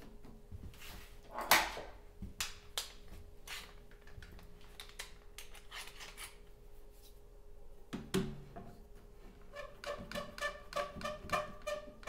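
Knocks and taps of a plywood jig and a bar clamp being handled against a wooden chest panel, the loudest about a second and a half in, with a thump about eight seconds in. Near the end, a quick run of ringing clicks as the trigger of a one-handed bar clamp is squeezed to tighten the jig in place.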